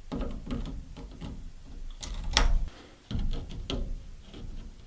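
Pliers clicking and knocking against metal spring hose clamps as they are squeezed and pulled back along the rubber hoses on a washing machine's fill valve. The loudest knock comes about two and a half seconds in.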